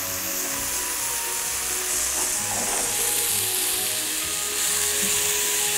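Boiled tripe stir-frying in hot oil with onions and peppers in a small pan: a steady sizzle as a wooden spatula turns it, with soft background music underneath.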